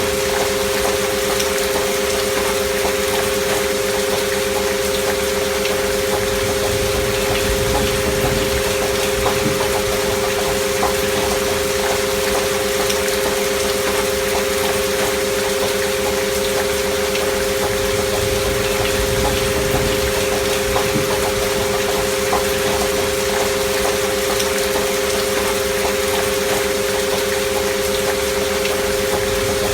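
Two steady, unwavering pure tones from a binaural-beat healing-frequency track, layered over a recording of gentle rain with scattered drop ticks.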